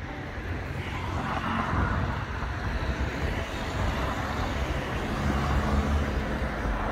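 A small car driving slowly past close by, its engine and tyre noise growing louder from about a second in.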